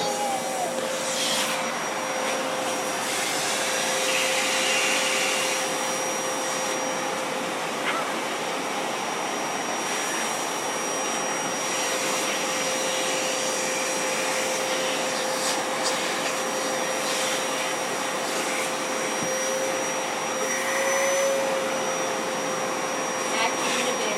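Vacuum cleaner running steadily, its motor giving a steady whine over the rush of air, with a few brief clicks here and there.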